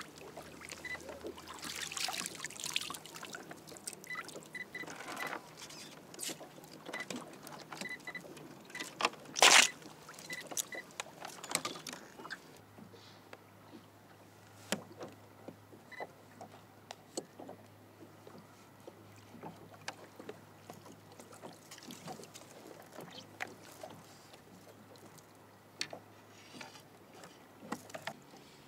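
Water sloshing and trickling around a kayak, with scattered clicks and knocks from gear being handled. About nine and a half seconds in comes one loud, short rush of noise, and after about twelve seconds the sound settles to a quieter background with only occasional ticks.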